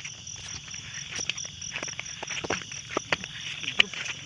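Night insects, crickets, chirping in a steady, evenly pulsing high trill, with scattered sharp clicks and taps over it, the loudest near the end.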